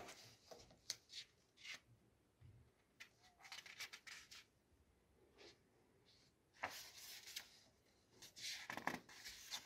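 Faint, scattered rustling of paper sheets being handled, with short scratches and taps, more of them near the end.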